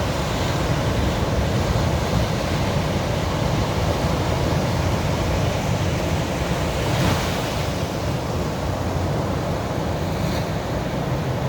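Sea waves rolling in and washing on the shore, a steady rush with one wave breaking a little louder about seven seconds in.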